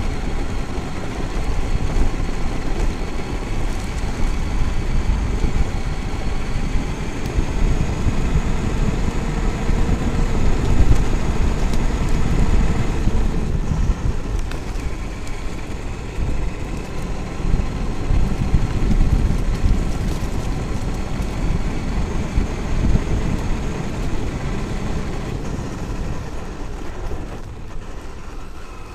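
Traxxas X-Maxx electric RC monster truck running at speed, heard from on board: a whine from the brushless motor and drivetrain rising and falling in pitch with speed over a heavy low rumble. It eases off near the end.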